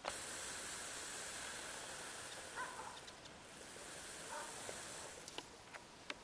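Quiet outdoor field ambience: a steady high hiss, with two faint short chirps in the middle and a few light clicks near the end.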